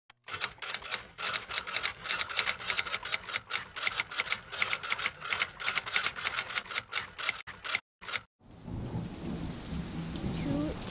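Typewriter keystroke sound effect: a rapid, irregular run of sharp clicks that stops about eight seconds in. A steady hiss then fades in.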